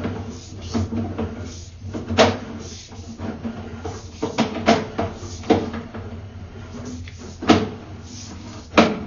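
Sewer inspection camera's push cable being fed through a cast-iron drain line, giving about eight irregular knocks and clunks over a steady low hum.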